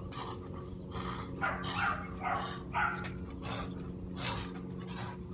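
A dog making a string of short, rough, irregularly spaced sounds, over a steady low background hum.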